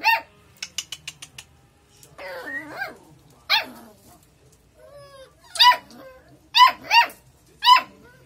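Beagle puppies yapping: short, high-pitched barks, several in quick pairs, with a whine about two seconds in.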